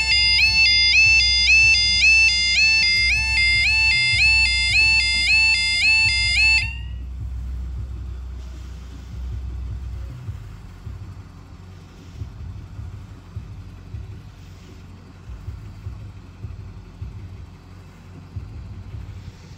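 Level crossing alarm sounding a rapidly repeating two-tone warble, loud, that cuts off abruptly about seven seconds in, the point at which the barriers are down. A low rumble continues after it.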